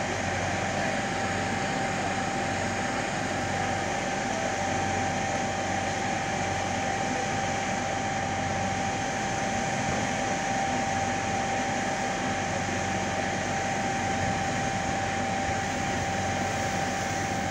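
Firefighting hose line and pump running steadily: an even rushing hiss with a constant mid-pitched whine that does not change.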